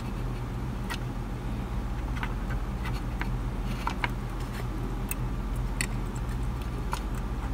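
Scattered light clicks and ticks of metal tweezers touching wires and parts inside a tin box, over a steady low hum.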